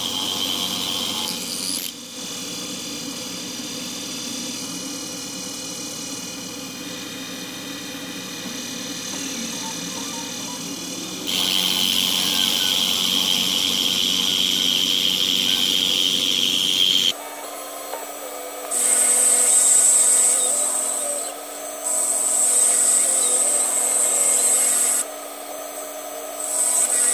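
CNC-converted Precision Matthews PM-25MV milling machine cutting a wooden block with an end mill on a roughing pass: the spindle runs steadily under the rough, hissing noise of the cutter chipping wood. The sound changes suddenly several times, alternating between a lower, duller cut and a brighter, louder one.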